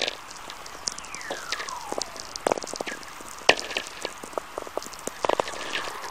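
VLF radio recording of natural atmospherics: an uneven crackle of sharp clicks, with one whistler tone gliding down in pitch about a second in. A whistler is lightning energy drawn out along Earth's magnetic field lines.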